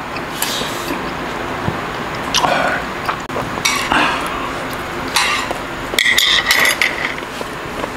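Close-miked eating sounds: metal chopsticks clicking and a bite into a slice of gimbap, then chewing, heard as a series of short crisp bursts.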